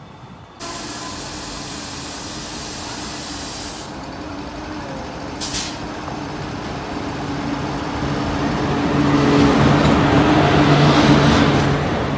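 Electric-locomotive-hauled passenger train approaching and passing along a station platform: steady train noise with a low hum, growing louder as the locomotive nears and the coaches run past close by. There is a sudden jump in noise about half a second in and a brief sharp sound midway.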